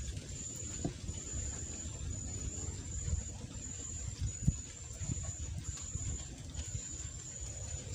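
Insects trilling in a high, steady tone that breaks off and resumes every second or so, over a low rumble, with a single knock about four and a half seconds in.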